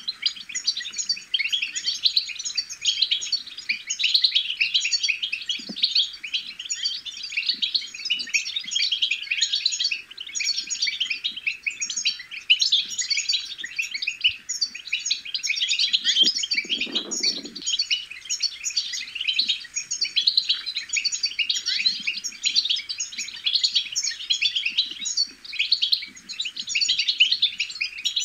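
European goldfinches babbling: a fast, unbroken stream of high twittering chirps and trills.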